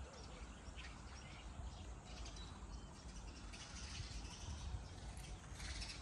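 Faint outdoor ambience with a few bird chirps in the first second. From about halfway there are footsteps crunching on gravel and rubble.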